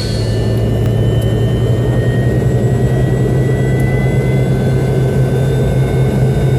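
Pratt & Whitney JT8D engines of a McDonnell Douglas DC-9-32 running, heard from inside the cabin: a steady low drone under a thin whine that slowly rises in pitch.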